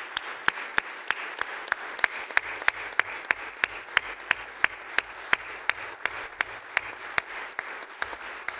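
Legislators applauding in a chamber: a steady wash of clapping with sharp, evenly spaced claps standing out, roughly four a second.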